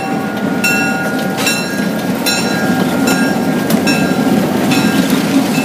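Ex-Santa Fe CF7 diesel locomotives, with EMD 567 engines, rumbling steadily as they pass close by. A grade-crossing bell rings roughly once a second throughout.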